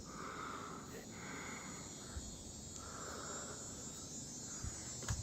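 Faint outdoor insect chorus: a steady high trill, with a few soft swells of noise.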